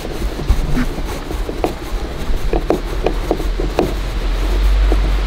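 Scattered light taps and knocks of hand work, over a low steady hum that swells near the end.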